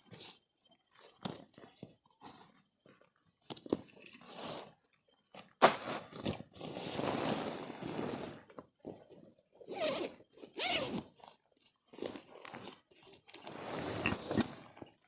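Irregular crunching and rustling in short bursts, with a longer stretch of rustling starting a little over five seconds in and more bursts near the end.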